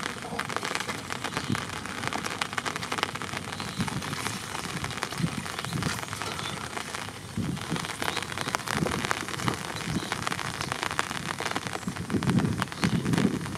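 Steady rain, a dense patter of small drops, over shallow running water in a rice-paddy channel, with water splashing around hands and bamboo fish traps. The splashing is heaviest near the end.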